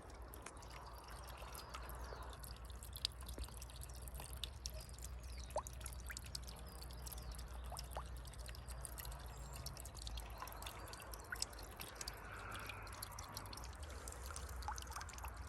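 Small pump-fed waterfall trickling and splashing into a little pond, faint and steady, with scattered drips.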